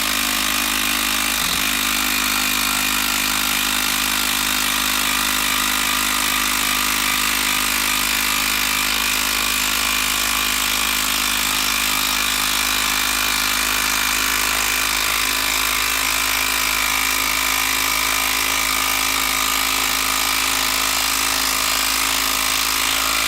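Makita 12-volt brushed impact driver hammering steadily under load as it drives a long TimberLOK screw into wood, cutting off suddenly near the end.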